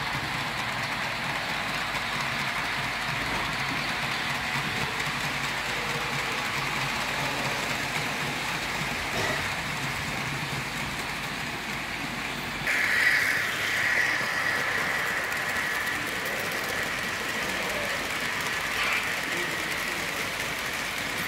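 Model railway freight train rolling past on the track: a steady rattle and clatter of the wagons' wheels on the rails. About 13 seconds in, the sound changes and a higher steady whine joins in.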